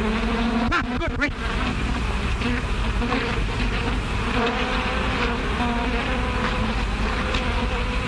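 A swarm of bees buzzing steadily, a continuous drone with wavering pitch. About a second in, a buzz swoops up and down in pitch. It is heard on an old early-sound-film soundtrack.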